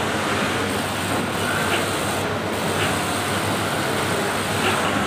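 Steady hum and rumble of industrial sewing machine motors running in a garment workshop, with a low mains-type drone and a few faint ticks.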